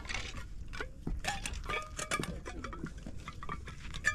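Metal dishes and utensils clinking and scraping in a quick, irregular run of short clicks, a few of them ringing briefly.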